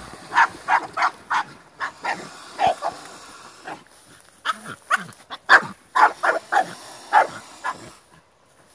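A dog barking repeatedly in two quick runs of short, sharp barks, with a short pause between them, at swans on the water.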